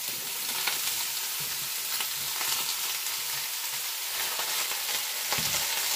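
Chopped bok choy and broccoli sizzling and crackling in hot olive oil in a pan, as more pieces are tipped in. A dull thump near the end.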